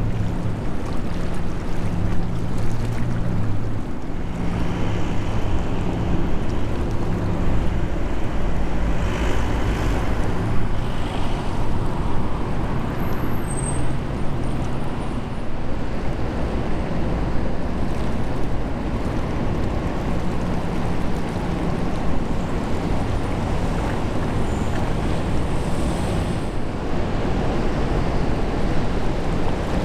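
Oil products tanker under way close by: a steady low hum from the ship with the rush of water along its bow, mixed with the wash of the sea.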